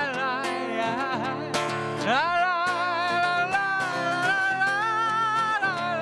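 A man singing long held notes with vibrato, with a slide up into a long sustained note about two seconds in, over a strummed acoustic guitar.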